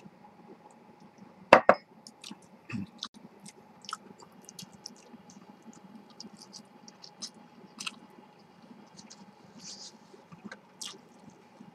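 Close-up eating sounds: chewing, with chopsticks clicking and scraping against a plastic rice tray and a bowl, in many small clicks. A single louder knock about a second and a half in.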